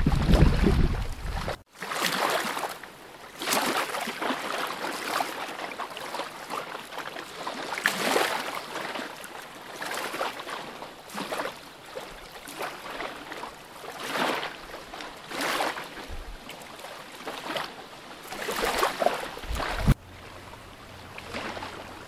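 Small waves lapping and washing onto a sandy lakeshore, a swell of splashing every second or two. Wind rumbles on the microphone for the first second and a half, then cuts off suddenly.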